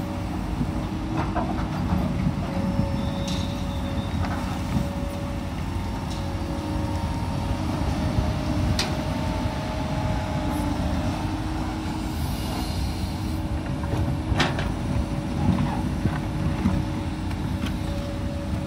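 Komatsu PC200 excavator's diesel engine running under load while it digs and moves soil, with a steady whine over the engine and a few sharp knocks.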